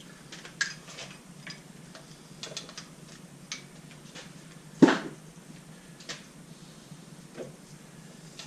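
Metal hand tools and bolts clinking and knocking as engine parts are unbolted, a scatter of separate clinks with one loud metallic clank about five seconds in.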